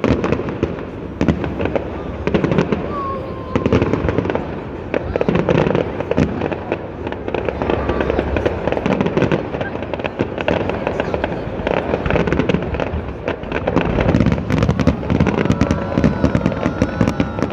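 Fireworks display: a dense, unbroken run of crackling bursts and bangs.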